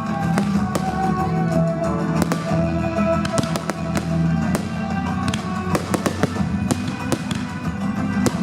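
Fireworks going off in many sharp bangs and crackles, over loud music playing for the display.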